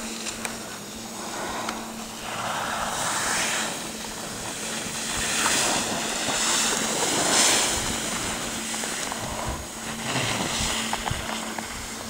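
Skis scraping and carving on firm snow, a hiss that swells with each turn, loudest about two-thirds of the way through.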